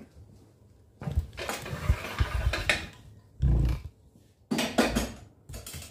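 Handling noise from a metal miter gauge with a wooden extension fence as it is carried and moved about: irregular knocks and light metal-and-wood clatter. There is a heavier thump about three and a half seconds in, and a few sharp clicks soon after.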